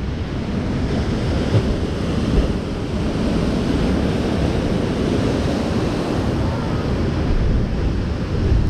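Sea surf washing against the shore rocks, with wind buffeting the microphone: a steady, rushing noise heavy in the low end.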